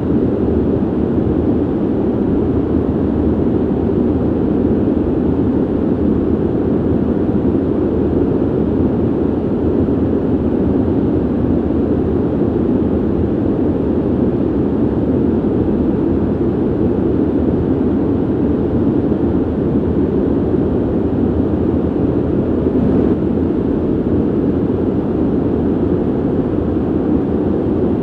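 Steady low rushing of air through a ventilation system, a deep even hiss without changes in level.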